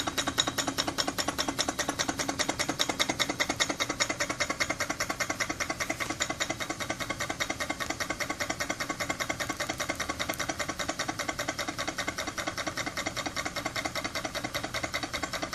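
Homemade miniature steam engine with a single cylinder and flywheel running fast, giving a rapid, even mechanical beat that is slightly louder for the first few seconds.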